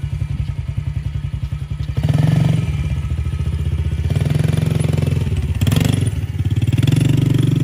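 Yamaha TT-R110's small air-cooled four-stroke single-cylinder engine idling, then revved up about two seconds in as the bike pulls away, and held under throttle, with a brief dip in revs near the end.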